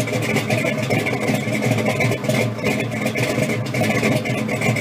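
A car engine running steadily at idle.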